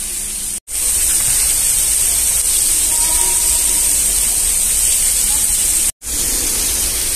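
Artificial indoor rain from overhead nozzles pouring steadily onto a metal grated floor: a dense, even hiss of falling water. It breaks off for an instant twice, about half a second in and near the end.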